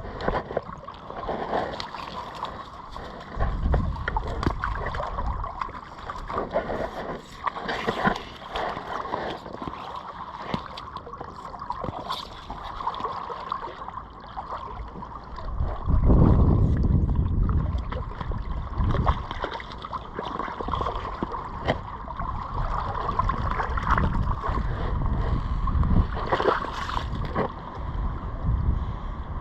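Water splashing and sloshing in flood water, with wind gusts buffeting the microphone, the strongest gust about sixteen seconds in.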